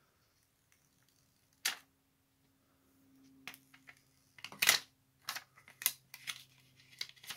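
Thin plastic backing film crinkling and clicking as it is peeled off a plastic screen protector. There are a few short crackles: one about a second and a half in, the loudest just under five seconds in, and several more scattered through the second half.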